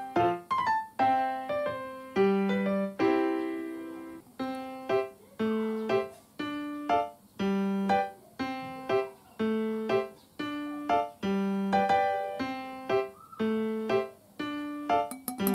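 Background music: a piano-like keyboard playing a gentle tune of struck notes at a steady, even pace, each note fading away. Just before the end, quick plucked-string notes come in.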